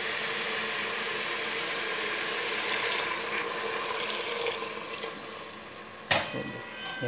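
Water poured from a jug into a pressure cooker of sautéed greens: a steady splashing pour that thins out after about five seconds. Just after six seconds a sharp knock follows, a ladle striking the metal cooker.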